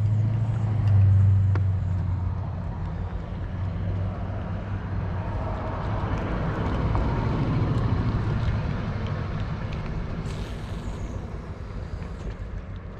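An engine runs with a steady low hum that is loudest in the first two seconds. A broader rush of noise swells around the middle and slowly fades, like a vehicle or boat going by.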